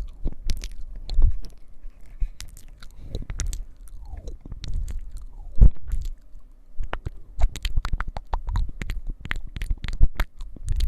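Close-miked ASMR mouth sounds and scratching: a dense, irregular run of crackling clicks over soft low thumps.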